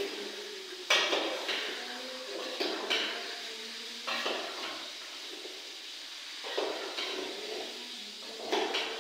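Metal ladle stirring in a large metal cooking pot, knocking and scraping against the pot several times, the sharpest knock about a second in, over a steady background hiss.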